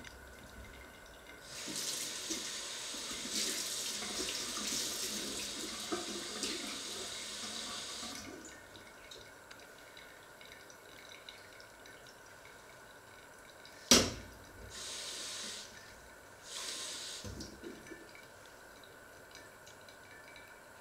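Kitchen tap running into a sink for about six seconds, then a single sharp knock, the loudest sound, followed by two short runs of the tap.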